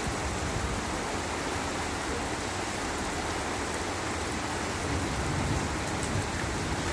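Heavy rain pouring steadily onto a road, a constant even hiss of rain striking wet asphalt and water.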